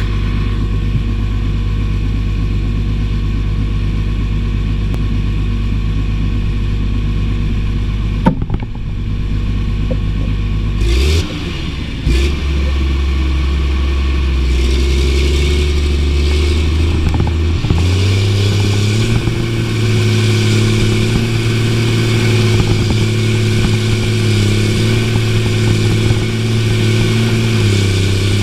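Caterpillar tractor's diesel engine, heard from inside the cab, running steadily, then stepping up in speed about eleven seconds in and again after about eighteen seconds as it pulls a cultivator through the soil. A single sharp click sounds about eight seconds in.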